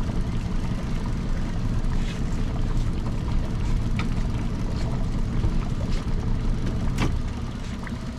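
Boat motor running steadily at slow trolling speed, a dense low rumble mixed with water noise. A single sharp knock comes about seven seconds in.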